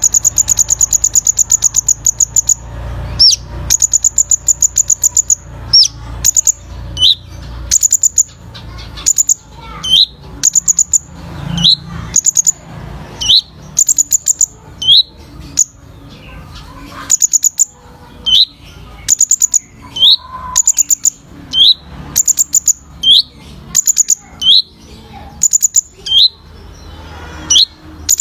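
A sunbird (kolibri ninja) singing: rapid trains of very high ticking notes, each about a second long, alternate with short rising whistles, over and over.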